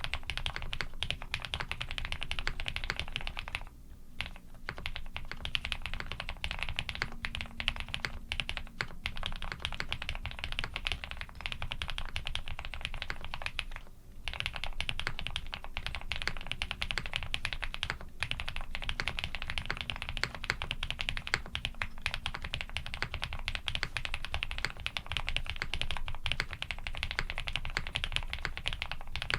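Continuous fast typing on a custom Mr. Suit mechanical keyboard with lubed linear switches (Cherry housings with Cream stems) on a POM plate under GMK keycaps: dense key clacks, with short pauses about four seconds and about fourteen seconds in.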